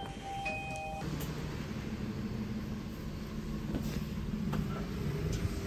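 Steady street traffic rumble with a low engine hum, after a brief electronic beep in the first second.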